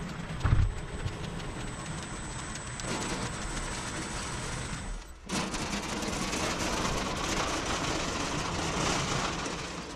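Home-built bandsaw mill running and sawing through a maple log, a steady dense machine noise. A knock about half a second in, a brief dip about five seconds in, then louder until the sound drops off near the end.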